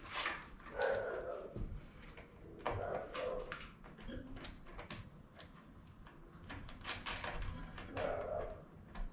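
Hand work on wiring: a scatter of small sharp clicks and rustles as a wire connector is pushed onto a tank level-sensor terminal, with a few brief muffled low sounds.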